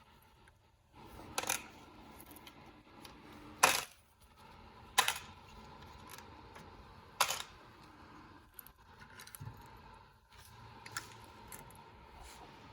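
Small metal parts and tools clicking and clinking during hand disassembly of a VW Beetle carburetor: four sharp clicks a second or two apart, with lighter ticks between them.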